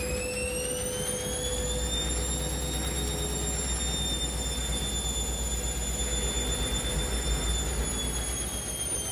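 Washing machine spinning up: a high motor whine rises in pitch over the first two seconds, then holds and sinks a little near the end, over a steady low rumble from the drum.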